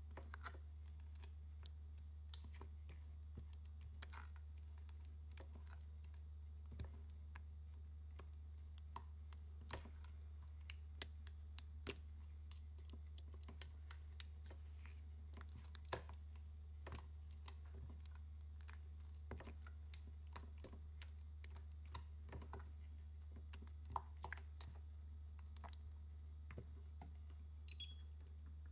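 Silicone spatula stirring thick pumpkin purée in a stainless steel saucepan: faint scraping with irregular light clicks and taps against the pan, over a steady low hum.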